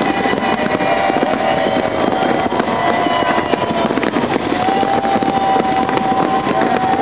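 Aerial fireworks bursting and crackling without a break, with long steady horn notes sounding over them.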